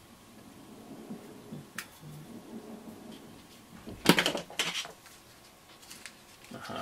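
Small plastic desoldering-braid spools handled and knocked together: soft rustling, then a sharp clatter of clicks about four seconds in and a few more clicks shortly after.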